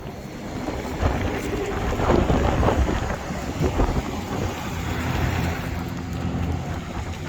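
Wind gusting against the microphone: a loud, uneven rumble with a rushing hiss above it.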